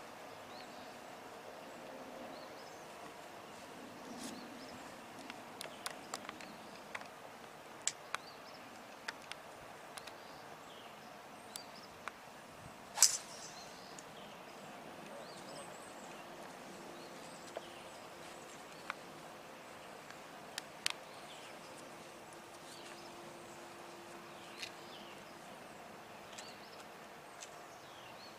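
Outdoor golf-course ambience with faint birds chirping and scattered small ticks. About halfway through comes one sharp crack: a driver striking a golf ball off the tee.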